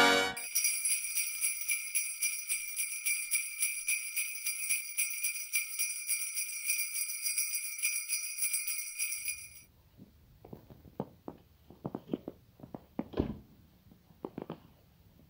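Jingle bells shaking in a steady rhythm for about nine seconds, then cutting off abruptly. After that comes a faint low rumble with a few short, soft clicks scattered over the last few seconds.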